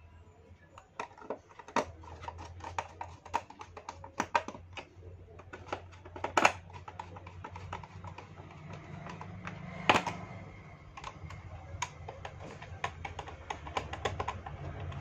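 Irregular small clicks and taps of hands working on a plastic set-top box case, closing its cover and fitting the cover screws, with two louder knocks about six and ten seconds in. A steady low hum runs underneath.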